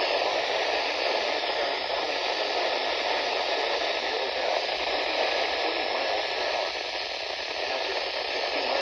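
Radio static: a steady hiss from a radio receiver on a weak, noisy signal.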